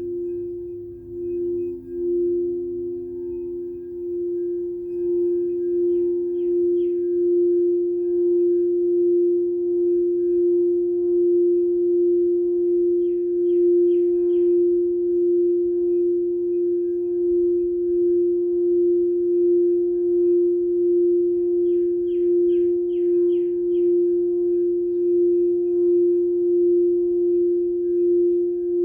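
A singing bowl sounding one steady, sustained tone that swells and fades about once a second, with a lower second tone dying away a few seconds in. Over it a bird chirps in three short quick runs.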